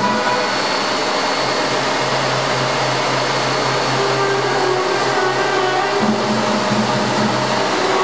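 Vacuum cleaners and a floor polisher running together as instruments in a wind-band piece: a steady, loud motor whoosh. Underneath, the band holds long low notes that change every couple of seconds.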